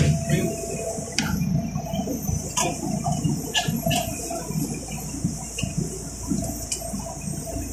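City bus idling at a stop, heard from inside near the door: an uneven low engine rumble under a steady hiss, with a few sharp clicks in the first half.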